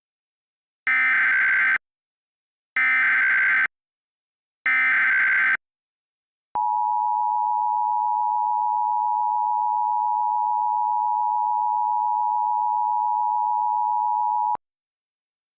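Emergency Alert System signal, recreated: three one-second bursts of buzzy SAME header data, which encode the alert type and area. Then comes the two-tone attention signal, a steady two-note tone held about eight seconds, which begins and ends with a click.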